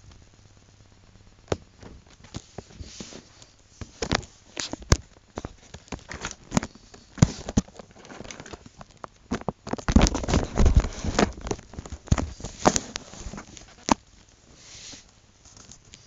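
Irregular clicks, taps and rustling from a hand handling paper and a marker pen close to the microphone, with a denser, louder stretch of rubbing about ten seconds in.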